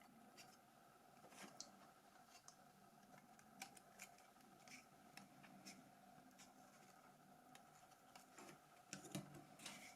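Near silence with faint scattered clicks and taps, small plastic phone parts being handled and fitted together, a little more handling noise near the end.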